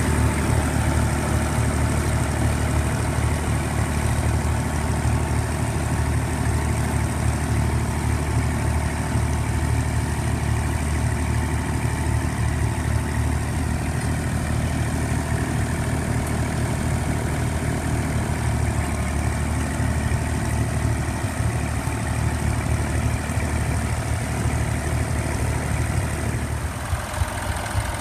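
Massey Ferguson 35 tractor engine running steadily with a low note while pulling a mounted plough through the soil.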